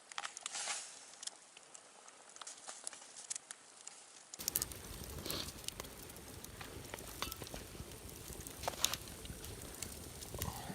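Campfire crackling and popping under a small cooking pot, with scattered sharp snaps. About four seconds in, a steady low rushing noise comes in beneath the crackle.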